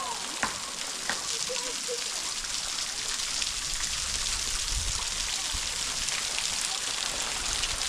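Waterfall water coming down off the bluff: a steady, even hiss of falling water and spray, a little louder in the second half, with a few small clicks in the first second.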